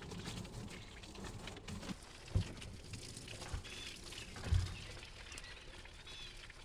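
Faint bird chirps over quiet outdoor background, with a couple of soft low thuds about two and a half and four and a half seconds in.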